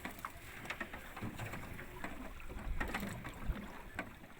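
Ambient sound aboard a small boat on the open sea: a low rumble of water and wind with scattered knocks and clicks against the hull.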